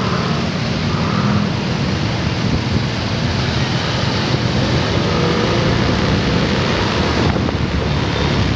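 Motorcycle riding along in traffic: steady engine and road noise with wind on the microphone.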